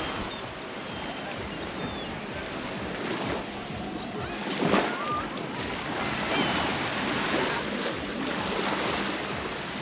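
Baltic Sea surf, waves breaking and washing ashore in a steady rush of noise.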